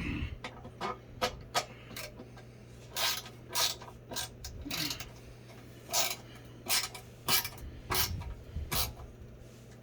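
Metal bolts on a sewing-machine table stand being tightened by hand: irregular sharp clicks and short rasping scrapes of a tool on metal fittings.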